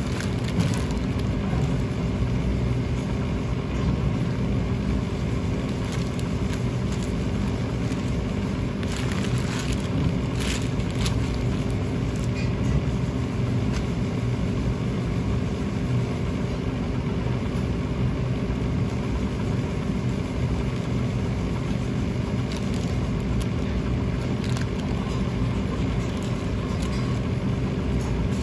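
Steady low hum of commercial kitchen machinery, running evenly throughout, with a few faint rustles of plastic wrap being handled partway through.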